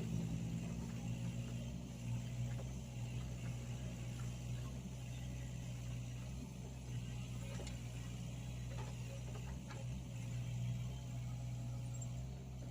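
Mini excavator's diesel engine running steadily, with a few faint clicks or knocks in the second half.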